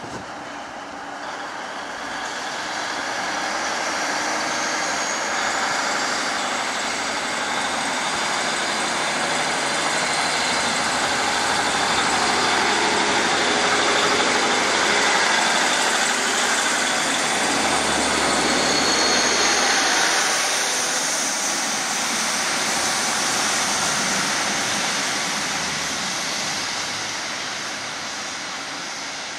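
Class 150 Sprinter diesel multiple unit pulling away from a station under power, its underfloor diesel engines and wheels passing close by. The sound builds for the first few seconds, stays loud through the middle and eases off toward the end.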